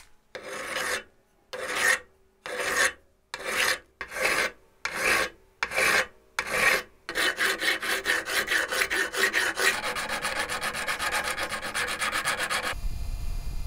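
Rasping hand strokes of an abrasive or file on a workpiece: about eight slow, separate strokes, then quick back-and-forth strokes that stop abruptly near the end. A low steady rumble follows them.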